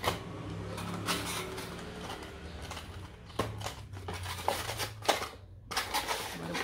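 Cardboard figure box being opened and handled: paperboard flaps rustling and sliding, with a few sharp taps and scrapes as the inner cardboard box is pulled out.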